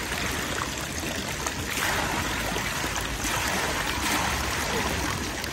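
Water flowing steadily, an even rushing sound.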